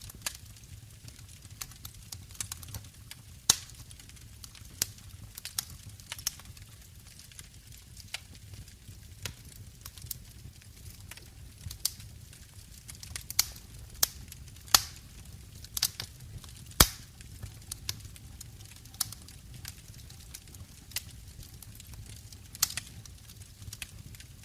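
Wood fire crackling in a brick fireplace: irregular sharp pops and snaps, a few much louder than the rest, over a low steady rumble.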